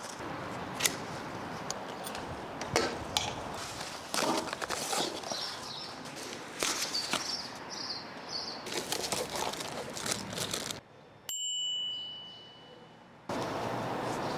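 Handling and unpacking noises: rustling with scattered clicks and knocks. About 11 seconds in, a single sharp metallic ding rings out briefly over a quieter background.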